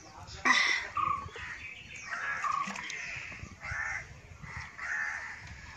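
Crows cawing, a string of short calls coming about every half second.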